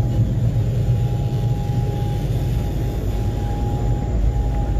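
Engines of a SeaCat high-speed catamaran ferry running at cruising speed underway: a loud, steady low drone with a thin steady whine above it.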